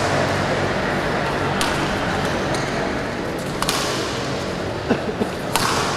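Badminton rally: a racket strikes the shuttlecock three times, about two seconds apart, each a sharp crisp hit. Short squeaks from court shoes come about five seconds in, over the steady murmur of a busy sports hall.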